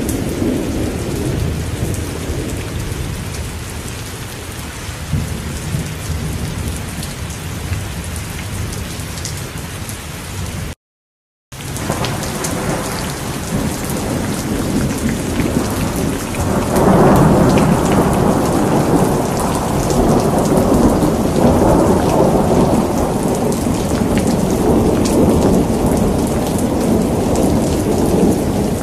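Steady heavy rain with rolling thunder. A rumble fades over the first few seconds, the sound cuts out completely for under a second about eleven seconds in, then a loud long roll of thunder builds a few seconds later and rumbles on over the rain.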